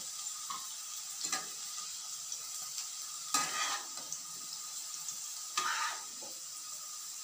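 Cut green beans sizzling gently in oil in a non-stick frying pan while a flat spatula scrapes and scoops through them three times. The beans are fully fried and being scooped out of the pan.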